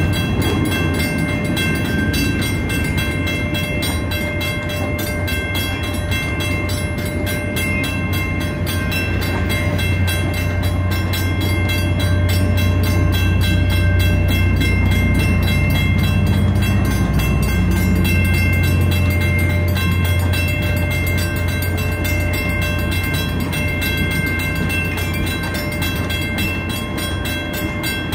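Ringling Bros. and Barnum & Bailey circus train's silver passenger cars rolling steadily past a grade crossing. Their wheels on the rails make a steady low rumble that grows louder around the middle. The crossing warning bell rings repeatedly throughout.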